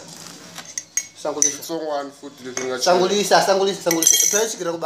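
A spoon clinking and scraping against a small metal sugar tin as sugar is spooned out, with repeated sharp clinks.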